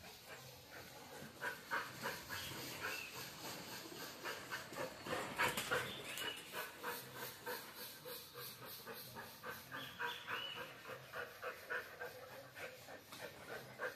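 Dog panting rapidly in a quick, even rhythm.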